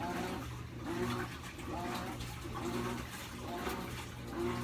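General Electric washing machine agitating: water sloshing in even back-and-forth strokes a little more than once a second over a steady motor hum.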